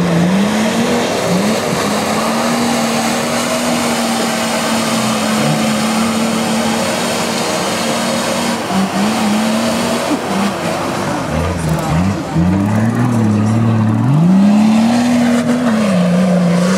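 Nissan Patrol 4x4's engine under load as it drives through a mud pit. The engine note holds steady for several seconds, then rises and falls repeatedly as the throttle is worked in the second half.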